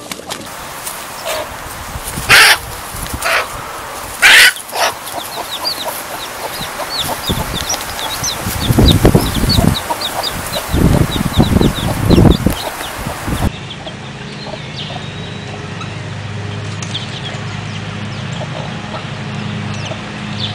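A hen squawks loudly twice, and chicks peep over and over in short high chirps, with bursts of low rumbling noise for a few seconds near the middle. After that, quieter clucking and faint chick peeps over a steady low hum.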